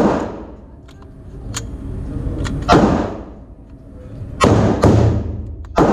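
Pistol shots at an indoor shooting range, each with a long echoing tail: five shots, irregularly spaced, one right at the start, one nearly three seconds in, and three more close together near the end.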